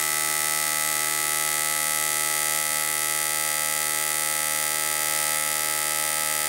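Geley FCM-4C fuel injector tester running a medium spray volume test, making a steady buzz as four electronic fuel injectors pulse and spray into the measuring cylinders. The cleaned number-one injector, which was dead before, is spraying along with the others.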